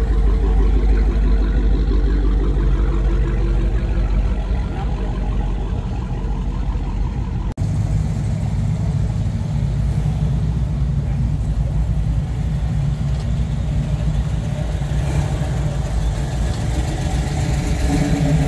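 Car engines rumbling at low speed as cars cruise past one after another. The engine sound changes abruptly about seven and a half seconds in, and a deeper, steady rumble follows.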